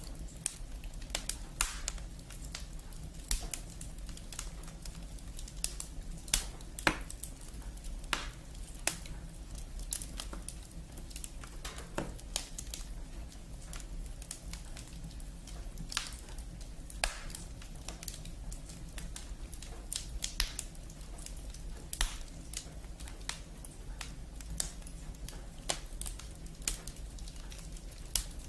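Crackling of burning firewood in a fireplace, an added sound effect: irregular sharp pops and snaps, some much louder than others, over a low steady rumble.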